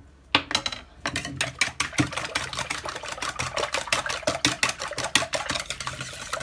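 Metal wire whisk beating raw eggs in a plastic mixing bowl: rapid, even ticking of the wires against the bowl, several strokes a second, stopping just before the end.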